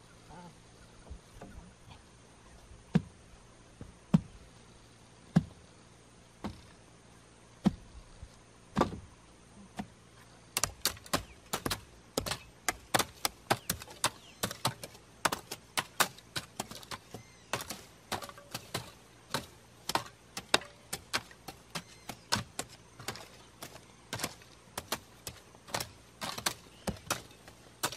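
Sharp chopping and knocking strikes of hand tools working wood and earth: a few widely spaced knocks, then from about ten seconds in a fast, uneven run of strikes, about three or four a second.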